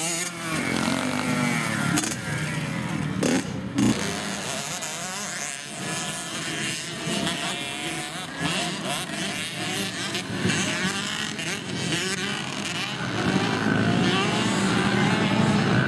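Small dirt bike engines revving, the pitch repeatedly rising and falling as the throttle is worked, growing louder in the last few seconds.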